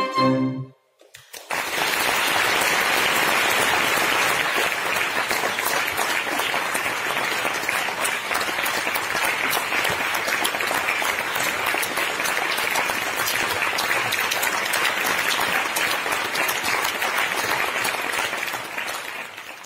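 A string quartet's last chord ends, and about a second and a half later an audience breaks into steady applause that fades out near the end.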